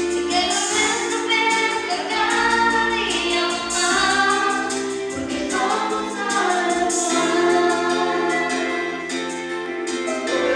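A woman singing into a handheld microphone, amplified through a loudspeaker, holding long notes over a musical accompaniment.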